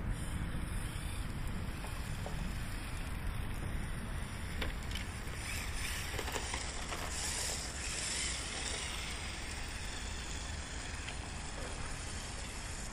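HSP 94123 1/10 brushless RC drift car driving on asphalt: a steady rushing noise of motor and tyres, which grows louder and brighter for a few seconds past the middle as the car passes close.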